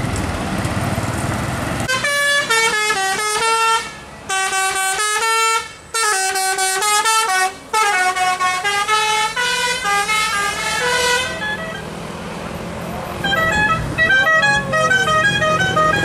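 Multi-tone 'telolet' bus horn playing a stepping melody of held notes with a few short breaks. After a brief lull near the end it plays a quicker run of short, higher notes. A low engine rumble is heard in the first two seconds, before the horn starts.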